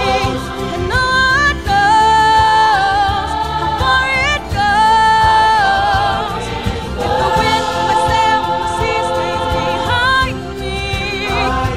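A large mixed choir singing, with a solo voice amplified through a handheld microphone leading above it. Long held notes waver, with short breaths between phrases.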